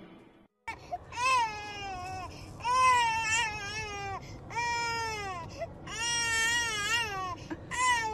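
A German Shepherd whining in a run of long, high, drawn-out cries, about five of them with short breaks, each rising and then falling in pitch.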